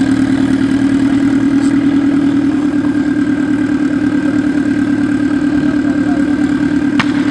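Off-road buggy's engine idling steadily with an even pulsing hum, and one short sharp click near the end.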